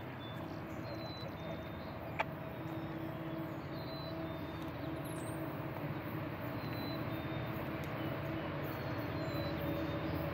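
Distant diesel locomotive approaching: a steady low engine drone that slowly grows louder, with faint bird chirps over it and a single sharp click about two seconds in.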